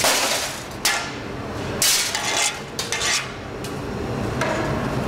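A metal tool clinking and scraping against large blown-glass cylinders, with a few sharp glassy knocks, the loudest about one and two seconds in.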